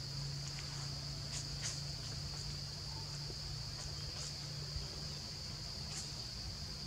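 Steady high-pitched drone of insects, with a few faint short chirps on top. A low steady hum runs underneath and stops about five seconds in.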